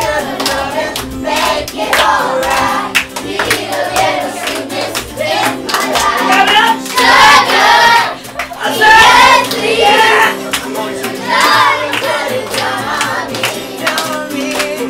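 A group of children singing together to a strummed acoustic guitar, with hand clapping. The voices swell loudest about seven and nine seconds in.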